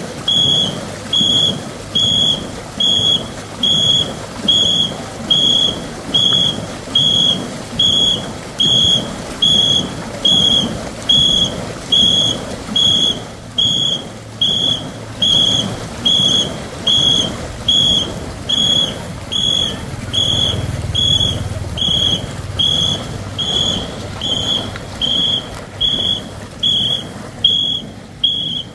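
A whistle blown in short, even blasts, about one and a half a second, keeping the paddling stroke for a ngo racing boat's crew, over a steady background rush.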